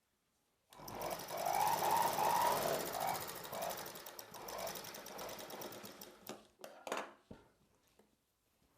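Sewing machine running a line of stitches: it starts about a second in, runs for about five seconds and dies away, followed by a few sharp clicks.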